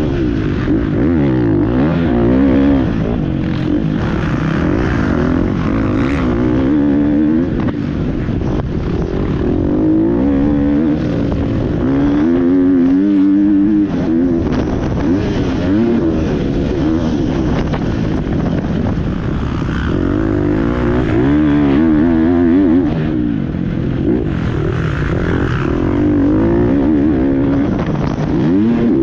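GasGas MC 250 dirt bike engine being ridden hard, its pitch rising and falling over and over as the throttle is opened and closed.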